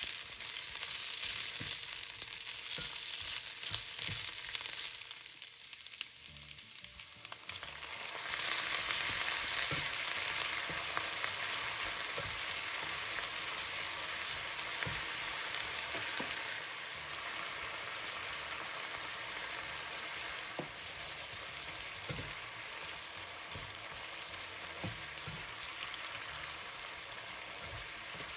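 Chicken strips and sliced onion sizzling in a nonstick frying pan while a slotted spatula stirs them, with scattered light taps and scrapes of the spatula against the pan. The sizzle dips for a couple of seconds about five seconds in, then comes back louder.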